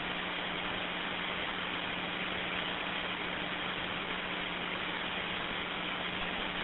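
Steady hiss of an open two-way radio channel with no voice on it, a low steady hum under the static.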